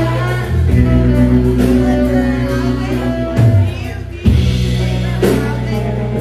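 Live band playing: saxophone lines over a steady bass and drum kit. About four seconds in the band thins out for a moment, then comes back in together on a loud hit.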